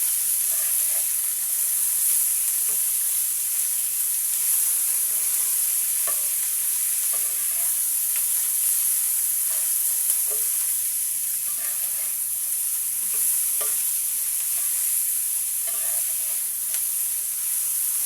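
Fish, onion, garlic and green chillies frying in oil in a frying pan: a steady high sizzle, with scattered light clicks of stirring in the pan.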